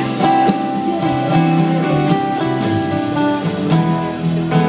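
Live rock band playing an instrumental passage: strummed and picked guitars over a steady drum beat, heard from within the audience.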